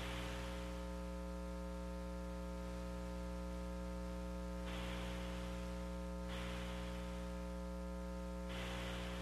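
Steady electrical hum with hiss on the launch-commentary audio line, a stack of mains-hum tones. A band of hiss switches on and off a few times, as on an open radio or intercom channel.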